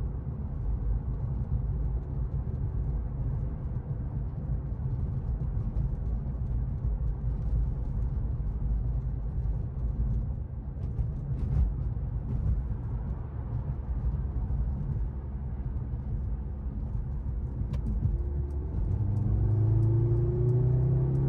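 2023 Mercedes-AMG C43 driving at a steady cruise, with a low engine and road rumble. About eighteen seconds in, its turbocharged four-cylinder engine note rises in pitch as the car accelerates.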